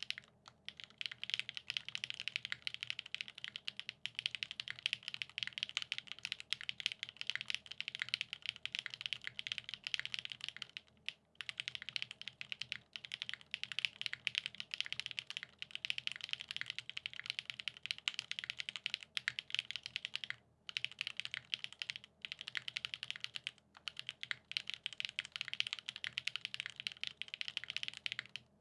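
Continuous typing on a custom mechanical keyboard with lubed Gateron X SW Pure Berry linear switches in a top-mounted polycarbonate plate, with GMK keycaps: a dense stream of key clacks, pausing briefly twice.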